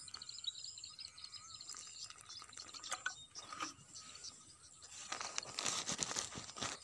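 Water dribbling from a plastic bottle onto dry rice bran, then a hand mixing the damp bran on a woven plastic sack. The mixing makes a gritty rustling that is loudest from about five to six and a half seconds in.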